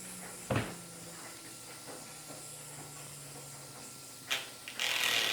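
Compressed air hissing from an air compressor's blow nozzle against a fidget spinner, with a low whir slowly falling in pitch. There is a sharp click about half a second in, and a loud blast of air starts near the end.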